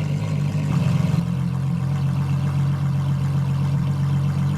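Ferrari LaFerrari's V12 engine idling steadily, with a brief small swell about a second in.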